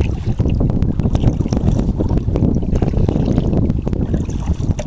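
Wind buffeting the microphone out on open water: a loud, continuous low rumble that gusts and flutters.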